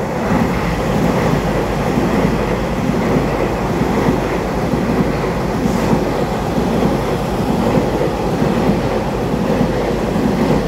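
Taiwan Railway EMU3000 twelve-car electric multiple unit train running along the platform, a steady, even noise of its wheels on the rails as car after car goes by.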